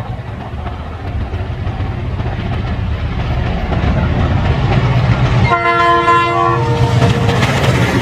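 Indian Railways train approaching, its low rumble growing steadily louder, with the locomotive horn sounding a multi-note chord about five and a half seconds in for about a second.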